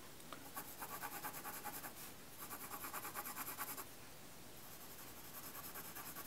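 Graphite pencil shading on drawing paper: three runs of rapid back-and-forth scratching strokes, each lasting about a second and a half, with short pauses between.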